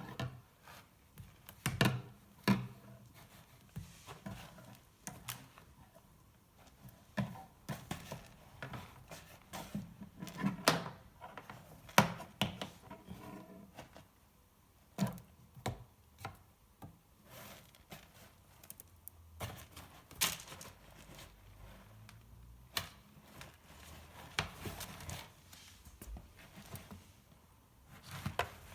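Irregular knocks, taps and scrapes, a few of them sharp, as the cats drag and handle a cat teaser wand.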